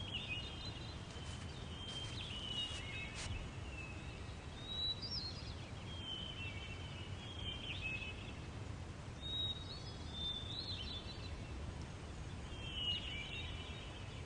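Savanna ambience: birds calling in short high chirping phrases that recur every second or two, over a faint steady low rumble.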